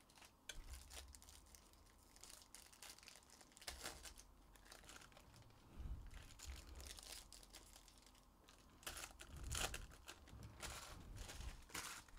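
Faint, irregular crinkling and tearing of foil trading-card pack wrappers as packs are ripped open and the cards handled, in fits and starts, loudest about three-quarters of the way through.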